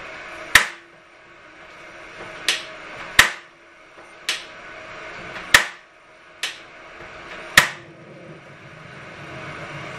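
Spark igniter of a small gas stove clicking seven times, sharp snaps a second or two apart, as she tries to light the burner. The flame catches near the end and a low, steady burner hiss follows.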